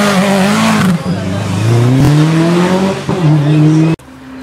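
Rally car's engine accelerating hard out of a hairpin after a handbrake slide, the tyres briefly hissing on wet tarmac at the start. The revs climb, drop at a gear change about three seconds in and climb again, then the sound breaks off abruptly near the end.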